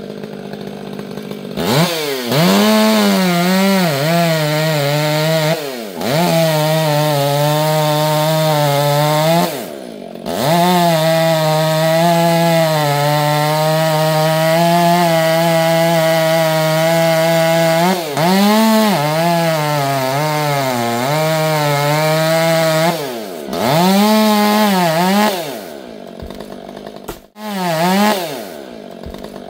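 Two-stroke chainsaw revving and cutting wood. Its pitch rises and dips with the throttle and holds steady under load for several seconds in the middle, with short drops to idle between cuts.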